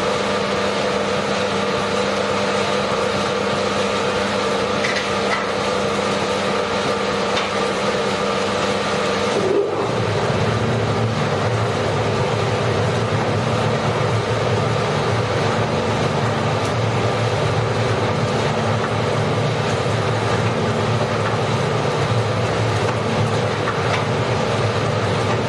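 Drum coffee roaster running, its motor and blower making a steady mechanical drone with a constant hum. About ten seconds in there is a brief dip, after which the low part of the drone grows stronger.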